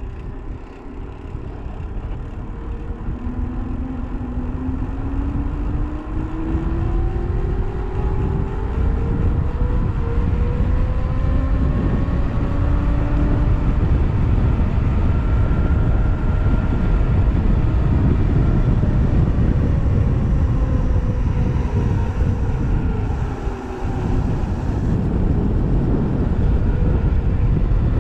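Vehicle engine under way with heavy wind and road rush. Its pitch climbs slowly as it pulls, eases down, then dips briefly about 23 seconds in, like a gear change, before climbing again.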